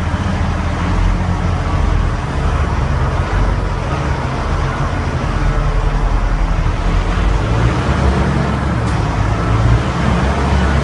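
Cat R2900G underground loader's diesel engine running steadily with a deep drone as the machine travels through a rock mine tunnel.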